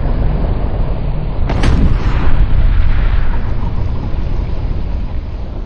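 Launch blast and backblast of a Carl Gustaf M2 recoilless rifle, stretched into a long, deep rumble. A sharper burst comes about one and a half seconds in.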